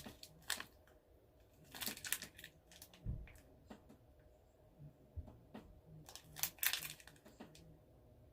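Scattered wrapper crinkling and crunching as a Cadbury Star Bar, a chocolate bar with caramel and peanuts, is broken up and eaten, in a few short clusters, with one dull knock about three seconds in.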